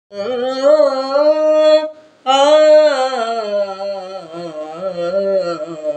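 A solo voice sings a wordless, unaccompanied melodic opening to a Telugu devotional song about Rama and Hanuman. It comes in two long, held, wavering phrases, with a short breath a little after two seconds in.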